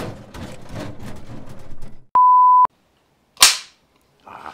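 A steady, single-pitch electronic beep lasting about half a second, followed about a second later by the sharp snap of a clapperboard slate being clapped shut. Before the beep, a couple of seconds of indistinct sound.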